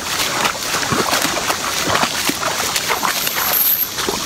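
Splashing steps of a person wading through shallow river water, irregular and sharp, with a few short vocal sounds in between.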